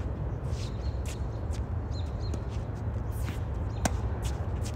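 Tennis rally on a hard court: a sharp pop of the near player's racket striking the ball about four seconds in, with fainter ball hits and bounces and shoe scuffs around it. A steady low rumble runs underneath.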